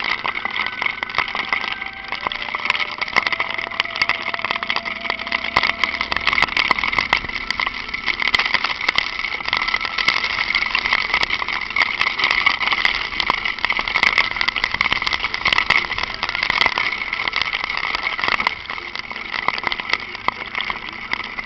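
Honda Falcon 400 motorcycle engine running in light rain, under a steady hiss with many small ticks throughout.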